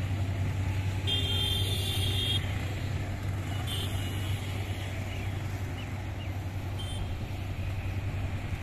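Steady low rumble of a passenger train moving away along with road traffic, slowly fading, with a few short high beeps about a second in, about four seconds in and near seven seconds.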